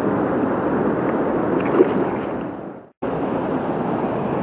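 Steady rush of a flooded river's current, with a brief splash about two seconds in as a channel catfish is let go in the shallow edge water. The sound drops out for a moment near three seconds, then the river noise comes back.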